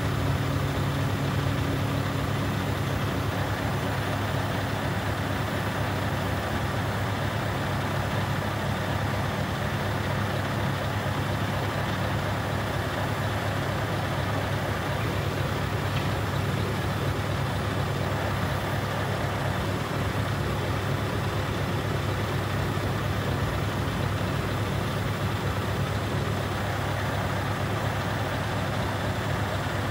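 Scania R730's V8 diesel engine running steadily, driving the hooklift's hydraulic system as the hook arm folds in. A higher steady hum drops away about six seconds in.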